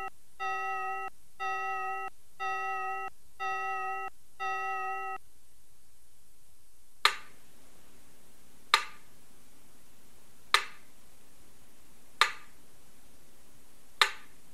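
A repeating electronic beep, one pitched tone sounding about every 0.8 s, stops about five seconds in. After a short pause come five sharp clicks, one roughly every 1.8 s.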